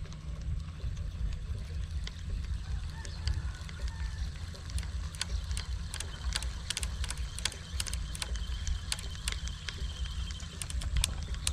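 Wind rumbling on the microphone, with a scatter of sharp clicks that grow thicker over the second half.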